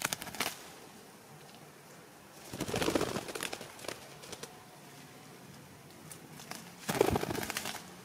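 Two short bursts of rustling and crackling leaves and twigs in dense scrub, about three seconds in and again near the end, with a few sharp clicks at the very start.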